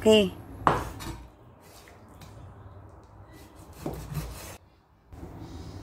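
Knife cutting raw meat into chunks on a chopping board: one sharp knock of the blade on the board about a second in, then quiet rubbing and sawing as it slices, with a few lighter taps.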